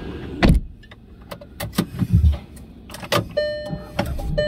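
Clicks and knocks inside a car, with a loud knock about half a second in. A short steady tone sounds once and starts again near the end.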